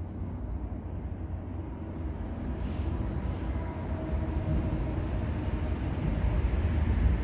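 Seoul Subway Line 3 train approaching the station, still out of sight: a low rumble that grows steadily louder. Faint steady whining tones rise above it for a couple of seconds in the middle.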